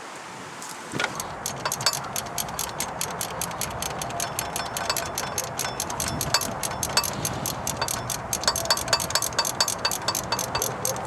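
Ratchet wrench clicking rapidly and evenly as bolts are run in while the alternator is refitted.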